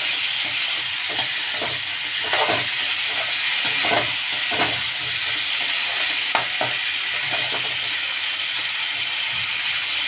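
Potatoes, tomatoes and green chillies sizzling in oil in a metal wok over a raised gas flame, with a perforated metal spatula scraping and knocking against the pan in irregular strokes as they are stirred.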